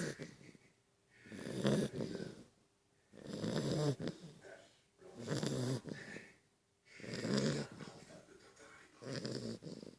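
Beagle snoring loudly, a rough snore about every two seconds, five in a row.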